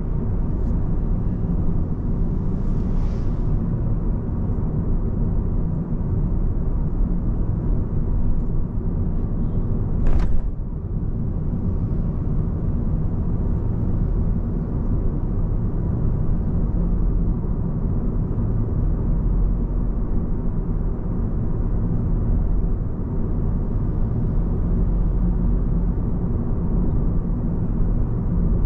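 A car driving, with a steady low rumble of road and engine noise. A single sharp knock about ten seconds in.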